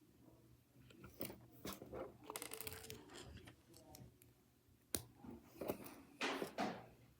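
Small plastic Nanoblock building pieces being handled: scattered clicks, a quick rattle of pieces about two seconds in, one sharp click about five seconds in, and short rustles near the end.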